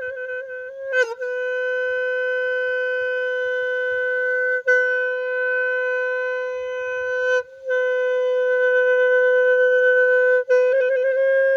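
A small traditional Khmer horn blown in long notes held on one steady pitch, broken by brief pauses for breath every few seconds. Quick fluttering flicks of pitch come at the start and again near the end.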